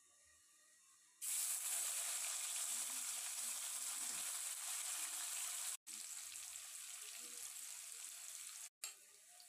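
Paneer cubes frying in hot oil in a kadhai: a loud, steady sizzle that starts abruptly about a second in. It breaks off for an instant twice and is quieter after the first break.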